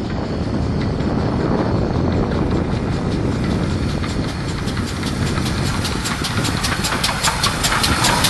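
GWR 5101 class Prairie tank steam locomotive 5164 working hard with a train of carriages, a heavy low rumble growing louder as it approaches. Over the second half its exhaust beats come through sharply, about five quick even strokes a second, as it passes close.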